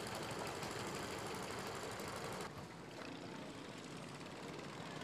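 Small boat engines running with a steady, rapid putter. The sound drops a little and turns duller about halfway through.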